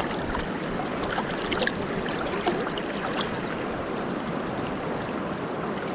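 Swift river current rushing steadily, with a few faint ticks over it.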